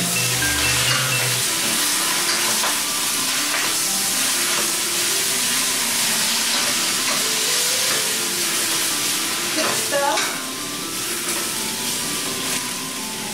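Chinese broccoli and shiitake mushrooms sizzling in an oiled stainless steel pan while a wooden spatula stirs and tosses them, with scattered knocks and scrapes of the spatula against the pan. The sizzle eases a little after about ten seconds.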